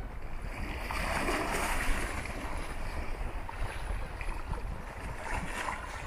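Gentle sea waves washing onto a sandy beach, with a surge of surf swelling about a second in. Wind rumbles on the microphone.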